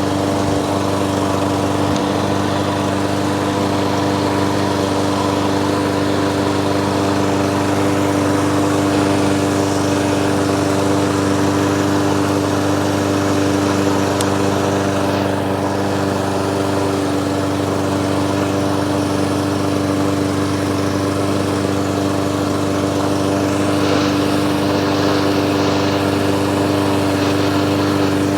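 Briggs & Stratton single-cylinder lawnmower engine running steadily at a constant speed.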